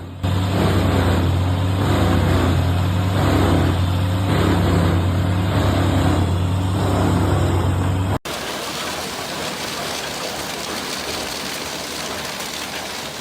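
Vermeer WC2300XL wood chipper running hard with a loud, steady deep engine hum as it chips logs. About eight seconds in, the sound cuts suddenly to an even, steady hiss.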